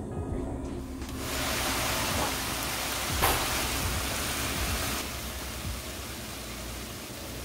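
A hot pan of mung bean sprouts cooking in a little water, giving a steady sizzling hiss that starts about a second in and eases after about five seconds. There is one sharp clack, from the metal tongs against the pan, about three seconds in.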